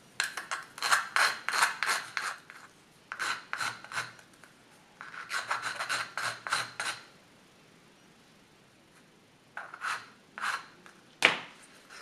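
A small metal file rasping back and forth across the thin aluminium rim of a soda-can alcohol stove, filing down the outer wall where it stands above the inner. Three runs of quick strokes, about three or four a second, then a pause and a few more strokes, and one sharp knock near the end.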